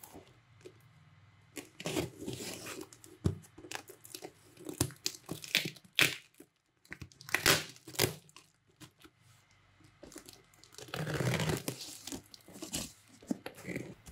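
A parcel being torn open by hand: its plastic wrapping and tape ripping and crinkling in short, irregular rips, with a longer rip about eleven seconds in.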